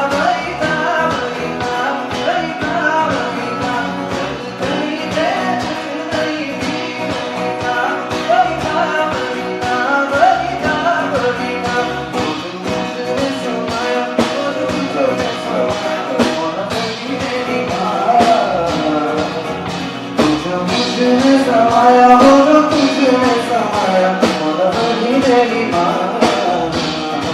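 Live band music: a singer's voice carries a gliding melody over guitar and a steady beat.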